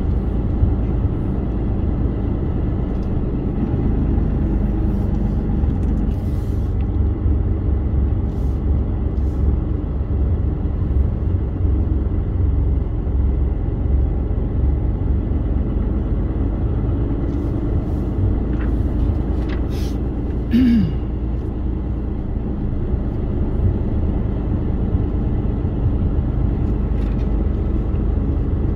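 Semi-truck's diesel engine running with a steady low rumble. A short hiss of air and a brief falling squeal come about two-thirds of the way through, typical of the truck's air brakes.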